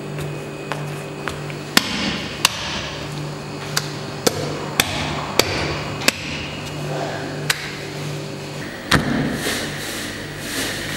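Lamb meat being chopped with a heavy blade on a wooden stump block: about ten sharp blows at irregular spacing, the last one about nine seconds in being the heaviest.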